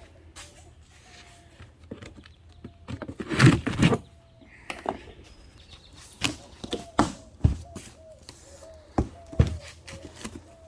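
A cardboard shipping box being opened and its packaging handled: a string of knocks, clicks and scrapes, with a louder rustle about three and a half seconds in.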